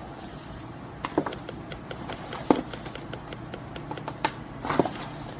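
Scattered light clicks and taps, a handful over a few seconds, the sharpest about halfway through, over a low steady hum.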